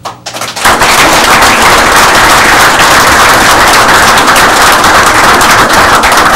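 Audience applauding: a few scattered claps, then the whole room joins in about half a second in and claps steadily.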